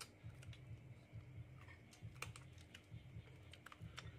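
Faint, irregular light clicks of metal spoons against ceramic plates and bowls during a meal, over a low steady hum.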